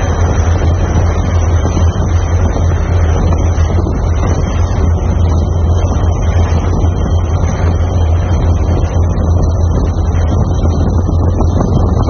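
Steady low drone of a boat's engine, with wind rushing over the microphone.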